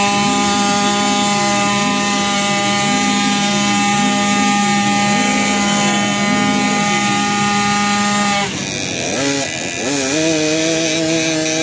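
Scooter engine held at high, steady revs during a stationary burnout, its rear tyre spinning on the asphalt. About eight and a half seconds in the sound cuts to another motorcycle engine, which revs up and then holds a steady, slightly lower note.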